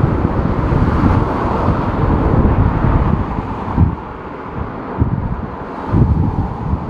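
Strong gusty wind buffeting the microphone in uneven low rumbling gusts, easing for a couple of seconds past the middle before picking up again.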